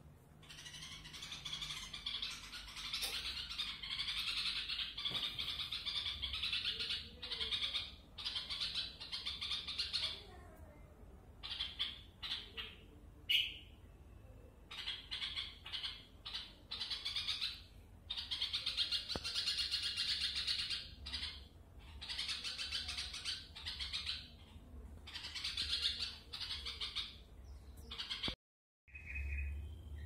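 A newborn baby bird calling: harsh, hissy calls in bouts of a few seconds each, broken by short pauses.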